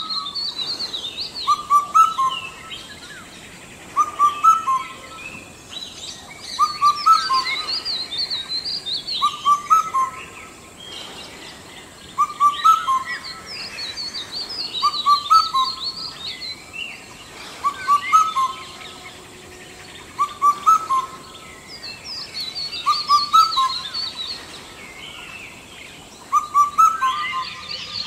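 Indian cuckoo singing its four-note whistled phrase, the last note lower, repeated about every two and a half seconds. Higher, busier chirping of other birds runs behind it.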